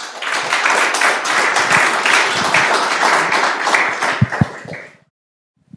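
Audience applauding: dense clapping that starts at once, runs about five seconds and dies away, with two low thumps near the end.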